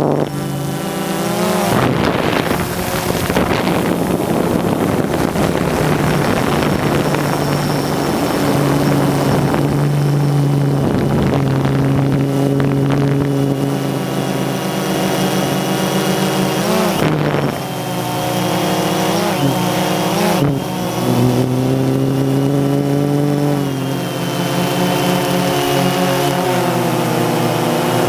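Drone's propellers and motors running with a steady, buzzing hum of several tones, the pitch sliding up and down as the drone changes speed, notably about two-thirds of the way in and near the end.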